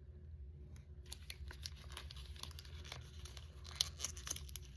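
Small plastic packaging being crinkled and torn open by hand: a quick run of fine crackles and ticks after about a second, with one sharper click near the end.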